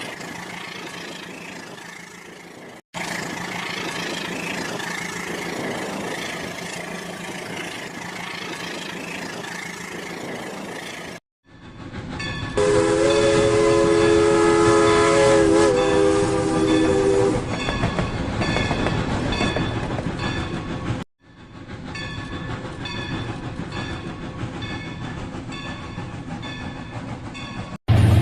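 Toy train's built-in sound effects: a running-train noise, a horn held for about five seconds about halfway through, then rhythmic clacking. The sound cuts off abruptly several times.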